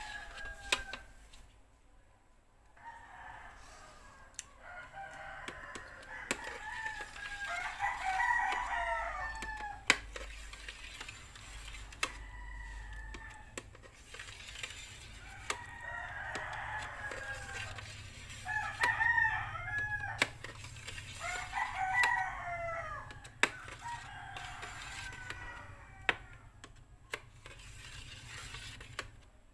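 Rooster crowing several times, each crow a drawn-out call lasting a second or two. Sharp clicks throughout from a knife blade tapping the metal tray as set gelatin is cut into cubes.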